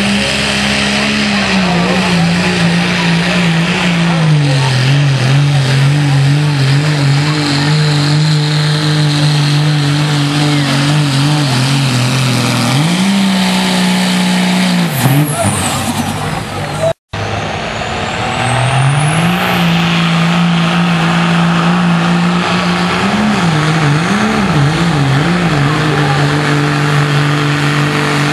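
Second-generation Dodge Ram's turbo-diesel engine under full load pulling a sled, running hard with its pitch dropping and climbing several times and wavering quickly up and down near the end. A high whistle sweeps through the engine noise about halfway and rises again just after the sound cuts out for an instant.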